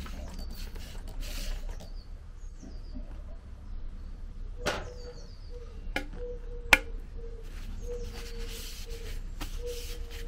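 A hand trigger spray bottle squirts water in a couple of short hisses onto a wax-treated wooden axe handle, testing its waterproofing. A few seconds later come three sharp clicks, the last the loudest, while small birds chirp in the background.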